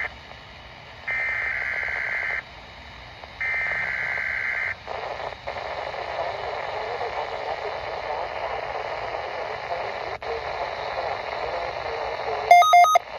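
Weather radio playing the SAME digital header of a required weekly test: the end of one screeching data burst, then two more, each about a second and a half long with short gaps between. Radio hiss with faint garbled audio follows, and near the end a quick run of loud electronic beeps.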